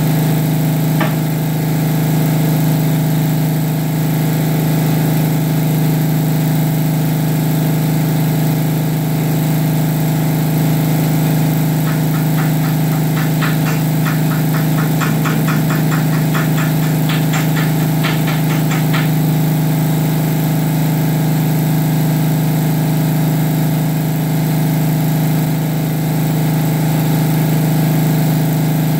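An engine idling steadily with a low hum throughout. About twelve seconds in, a run of quick sharp ticks at about three a second starts and lasts some seven seconds.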